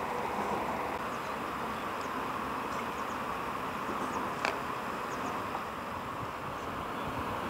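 Steady outdoor background noise with a few faint, short high chirps and one sharp click about four and a half seconds in.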